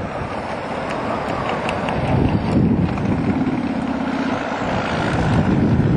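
Kawasaki Vulcan Mean Streak 1600 V-twin engine running while the motorcycle is underway, with wind buffeting the helmet microphone.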